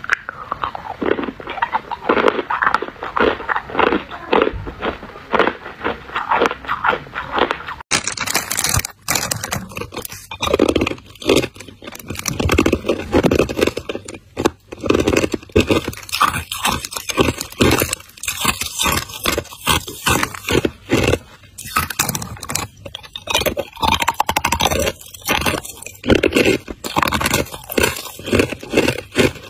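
A person biting and chewing hard ice close to the microphone: rapid, dense crunching with no break. From about eight seconds in the crunches sound brighter and crisper.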